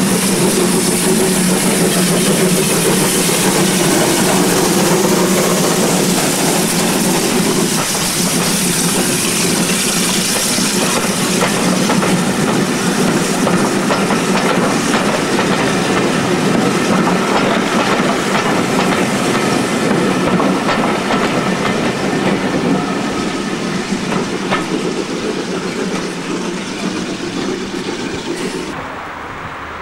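Steam tank locomotive pulling away with steam hissing, followed by a rake of coaches rolling past, their wheels clicking over the rail joints. The sound drops abruptly near the end.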